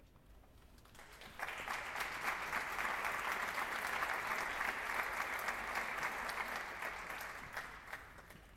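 Audience applauding, a dense patter of many hands that starts about a second in, holds steady and dies away near the end.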